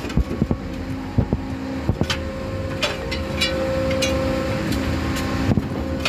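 Putzmeister concrete pump truck running steadily, while a steel scraper bar knocks and scrapes against the steel hopper and transfer tube, chipping off leftover hardened concrete during clean-out. The sharp knocks come at irregular intervals over the hum.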